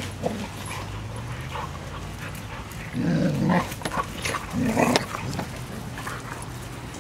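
Dogs growling and vocalising during rough play-wrestling, loudest in two bursts, about three seconds in and again near five seconds.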